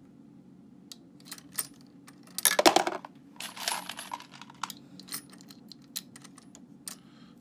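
Light metallic clicks and clinks of brass cartridge cases and press parts being handled on a Dillon 550 progressive reloading press, with a louder rattling clatter about two and a half seconds in and another run of clicks a second later.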